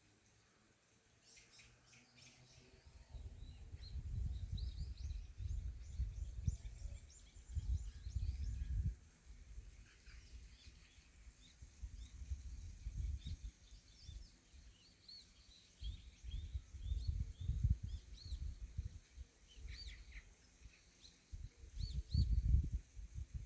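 Several birds chirping and whistling in short, repeated calls, over an irregular low rumble that swells and fades every second or two.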